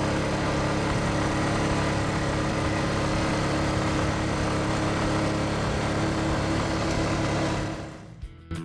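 Honda quad bike engine running steadily, heard from the rider's seat, fading out near the end.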